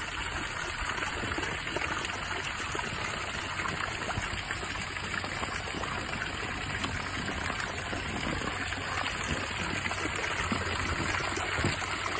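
Running water in a swimming pool: a steady, unbroken rush.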